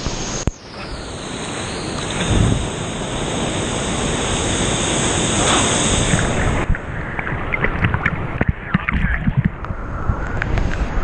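Waterfall pouring into a plunge pool, heard from the pool's surface as a loud, steady rush. About two-thirds of the way in the rush turns duller, and small splashes and laps of water against the waterproof camera come through.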